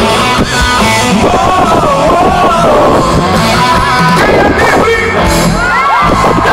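Live gospel rock band playing loudly through a concert PA, with guitars, drums and a voice singing a wavering melody line.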